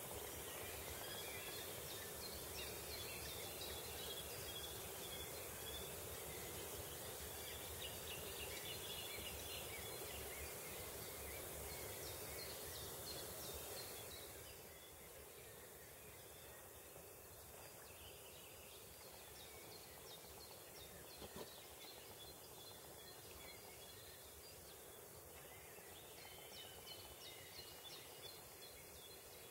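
Faint outdoor ambience: a steady background hiss with scattered small bird chirps and twitters. The background drops quieter about halfway through.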